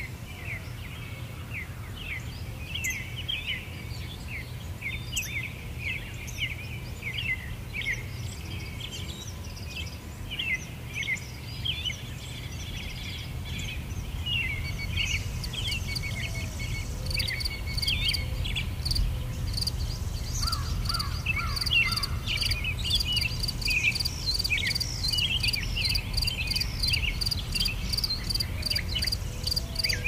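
Nature ambience: many small birds chirping and twittering over a steady low rumble. About halfway through, an insect, cricket-like, starts a regular high pulsing chirp, about two pulses a second, which runs on alongside the birds.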